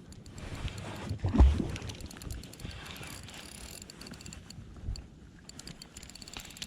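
Handling knocks and clicks in a small boat, with one loud low thump about a second and a half in and scattered light clicks after it.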